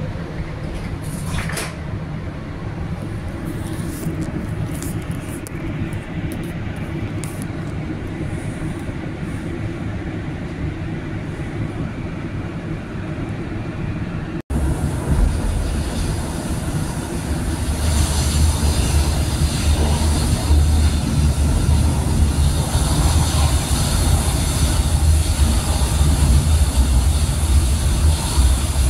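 Inside a St. Louis MetroLink light-rail car: a steady hum while the car stands at the platform, then, after a sudden break about halfway, the rumble and hiss of the train running along the track, growing louder a few seconds later.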